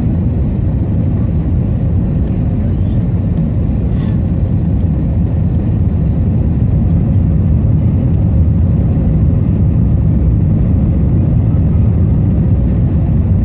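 Steady low roar of airflow and jet engines inside the cabin of an Airbus A321 descending on final approach, with a faint thin whine above it. It gets slightly louder from about seven seconds in.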